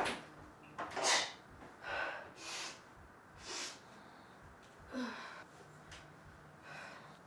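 A woman breathing heavily in a series of short, sharp breaths and sighs about a second apart, with a brief low groan about five seconds in, as she catches her breath after a close call.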